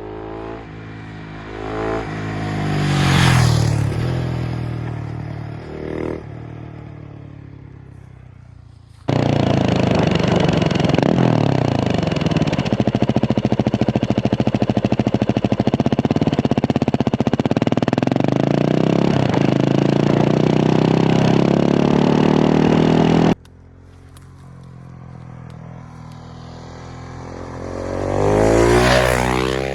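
Husqvarna 701 Supermoto's single-cylinder engine through a Remus exhaust. The bike passes by and fades away, then a loud close-up stretch follows with the engine pitch dropping and climbing again. Near the end the bike approaches and passes once more; the sections are cut together abruptly.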